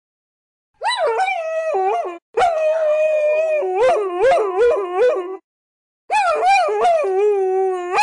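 Several dogs howling together: long wavering howls overlapping with short rising yips, in three stretches with brief breaks between.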